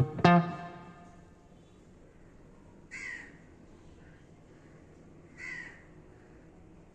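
A last plucked guitar note rings out and fades, then two short harsh bird calls about two and a half seconds apart.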